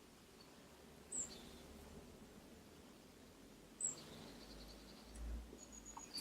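Faint, near-quiet room tone broken by two brief high-pitched chirps, about a second in and again near four seconds.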